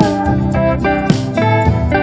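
Calm instrumental music: a melody of separate notes, a new one struck about every half second, over sustained low notes.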